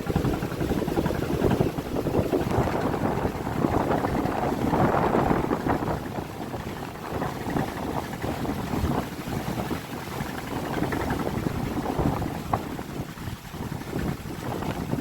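Strong gusting storm wind buffeting the microphone over a rough, choppy river, the rush rising and falling in gusts.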